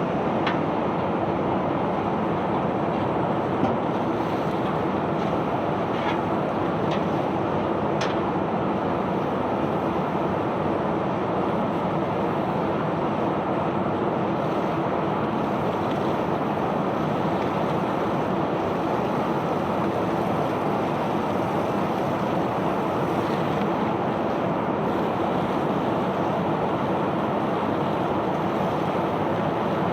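Steady rushing noise of sand pouring off a self-unloading sand barge's discharge conveyor, with a few faint clicks in the first eight seconds.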